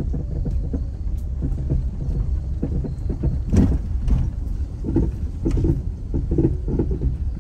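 A vehicle driving slowly over a rough dirt woods trail, heard from inside the cab: a steady low rumble with repeated knocks and rattles as it jolts over the bumps, the hardest jolt about three and a half seconds in.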